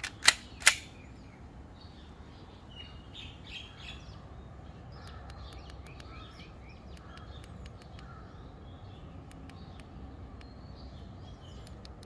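Slide of an Army Armament R18 Glock 18C gas blowback airsoft pistol racked by hand: two sharp clacks under half a second apart as it is pulled back and let go. Small birds chirp faintly afterwards.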